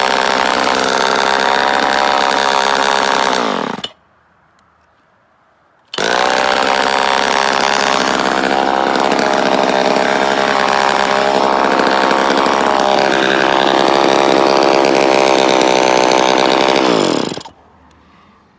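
Homelite Super EZ Automatic two-stroke chainsaw running and stopping about four seconds in, then starting again two seconds later and running steadily for about eleven seconds. It is then shut off with its decompression valve, dying away with a short falling brrr.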